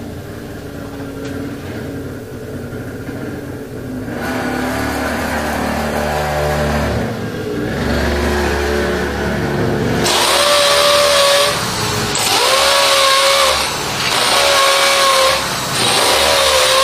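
Corded electric drill boring into a wall in several bursts, the motor's pitch dipping and recovering as the bit bites. The loud drilling starts about ten seconds in, after a quieter stretch.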